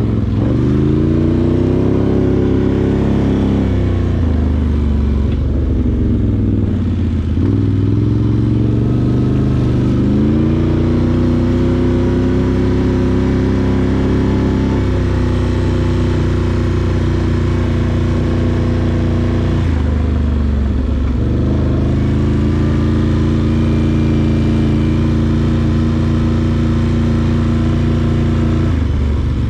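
Can-Am Outlander 850 ATV's V-twin engine running under way. Its revs climb and drop several times as the throttle is opened and eased off, with a few longer steady stretches between.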